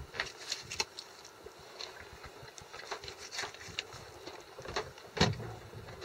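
Knife filleting a false albacore on a plastic cutting board: scattered light clicks and scrapes as the blade works along the fish, with one louder knock about five seconds in.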